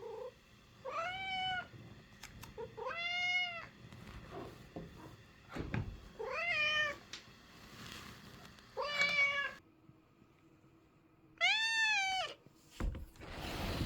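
American Curl cat meowing five times, each meow under a second long and rising then falling in pitch. A short burst of noise follows near the end.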